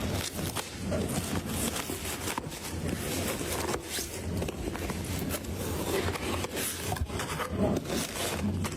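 Handling noise: continual scraping and rubbing with scattered clicks, as of hard parts being handled and fitted together.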